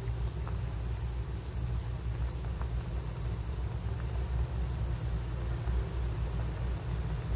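Steady low hum and rumble, with a few faint ticks over it from the pot of soup simmering on the stove.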